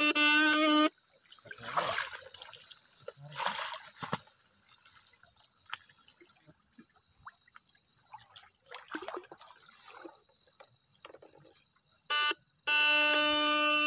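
Electric fish shocker buzzing loudly with a steady electrical tone. It cuts off about a second in, leaving faint splashing and rustling of wading through grassy shallow water. The buzz sounds again in a short blip about twelve seconds in and then runs steadily to the end.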